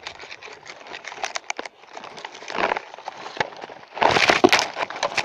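Close, scratchy handling noise with scattered sharp clicks, loudest about four seconds in, as a phone rubs against clothing and a clip is worked through a crab pot's mesh.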